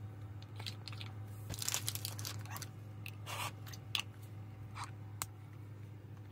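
Plastic cat food puzzle being pawed and handled: scattered clicks of its clear plastic cups and short scraping noises as the tray is pushed along a wooden floor.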